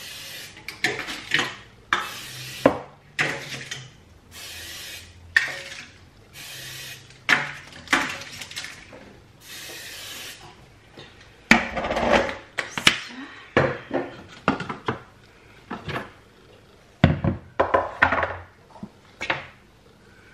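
Cooking-oil spray hissing in many short bursts as a springform cake tin is greased. These are followed by clattering of metal pans and kitchen utensils, with a loud knock about 17 seconds in.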